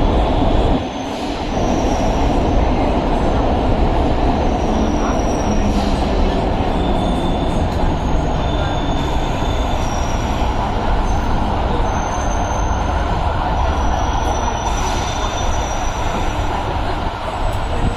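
Chennai MRTS electric suburban train running, a steady rumble and clatter of wheels on rail with thin high wheel squeals coming and going above it.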